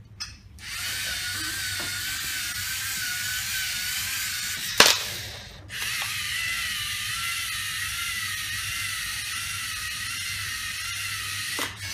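LEGO Mindstorms NXT servo motors and gear train whining steadily as the robot drives forward. A sharp snap just before five seconds in comes as it fires a ball. After a brief pause the motors whine again at a slightly lower pitch as it backs away.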